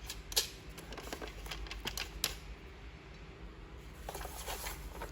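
Light clicks and taps of plastic vacuum cleaner parts being handled, with a sharper click about half a second in and another a little after two seconds.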